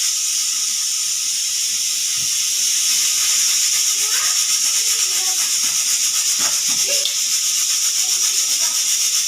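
Pressure cooker whistle blowing off steam: a loud, steady high hiss with a fast flutter, the jet of steam escaping past the whistle weight.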